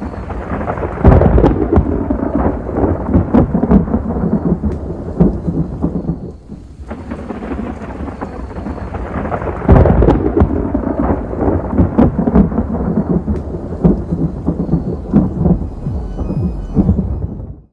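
Sound effect of rumbling thunder with dense crackling. It hits hard about a second in and again about ten seconds in, dips around six seconds, and cuts off suddenly at the end.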